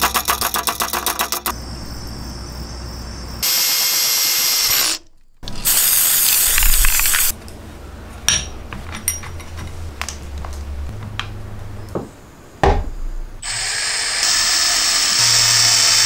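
Power tools running in several short bursts, the first with a fast pulsing rhythm, with clicks and a sharp knock of tool parts being handled in between. Near the end a drill runs steadily, driving screws.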